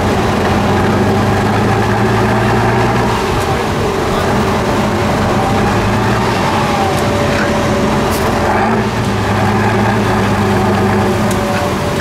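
Heavy diesel engines of an 8x8 trial truck and an excavator towing it on a strap, running hard under load; the engine note steps up and down several times.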